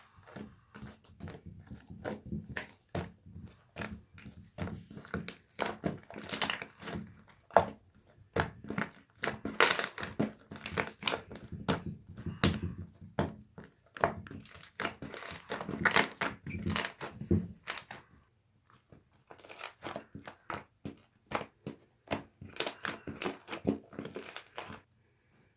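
Mint marbling jelly slime being squeezed and stretched by hand: dense, irregular crackling and popping clicks like crinkling plastic. There is a short pause about three-quarters of the way through, and the sound stops just before the end.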